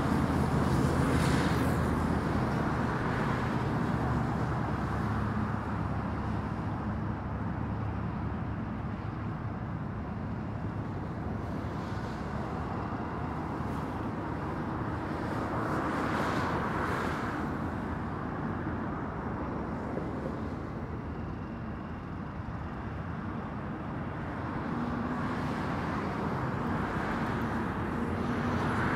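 Road traffic on a busy highway: a steady wash of tyre and engine noise, with passing vehicles swelling louder near the start, around the middle and near the end.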